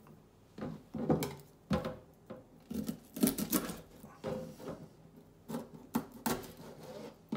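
Kitchen knife cutting the head off a whole herring on a plastic cutting board: irregular crunches as the blade goes through the backbone, with taps and knocks of the knife and fish against the board.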